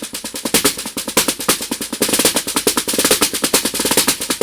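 Homemade plate cajon, a simple plate built to sound like a snare drum, played in a fast, unbroken run of strokes, about ten a second.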